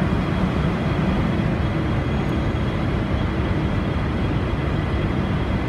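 V/Line N-class diesel-electric locomotive, with an EMD 12-cylinder two-stroke engine, running steadily close by: a deep, even rumble with a faint steady high-pitched whine above it.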